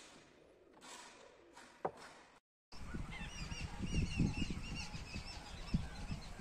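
Faint rubbing of bamboo lamp parts being handled, with one sharp click about two seconds in. After a short dropout, wind buffets the microphone in low gusts while birds call over and over in short chirps.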